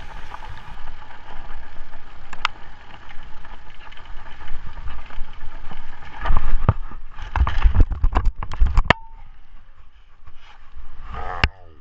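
Mountain bike rolling fast down a rough dirt trail, the on-bike camera picking up steady rattling and rolling noise. About six seconds in comes a run of heavy knocks and thumps as the bike and rider crash, then quieter rustling and one more sharp knock near the end.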